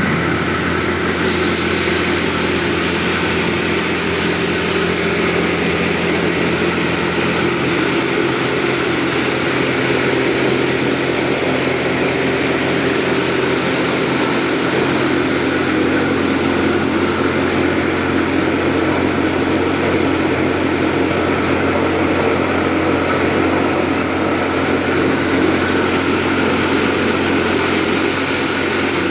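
Grain-processing machinery running steadily: a continuous loud mechanical drone with a steady low hum and a dense rushing noise over it, unchanging throughout.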